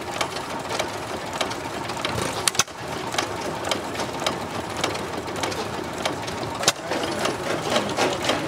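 Old stationary engines running slowly: a steady mechanical clatter with sharp, irregular clicks.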